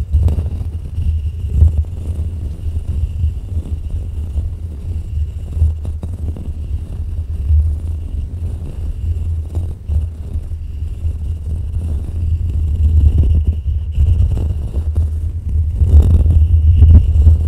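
Fingers scratching and rubbing a foam-covered microphone up close: a loud, continuous low rumble that swells and dips, with scratchy crackles through it.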